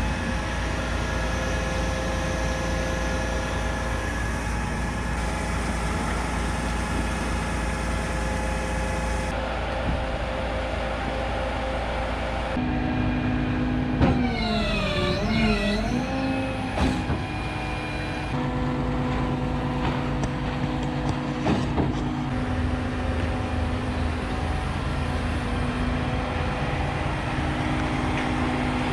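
Heavy truck's engine running steadily, its tone changing abruptly every few seconds. About fourteen seconds in, a pitched sound slides down and back up over a couple of seconds.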